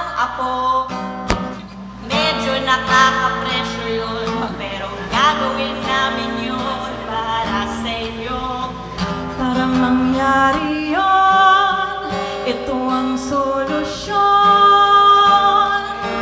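Women singing a song in Tagalog, accompanied by an acoustic guitar.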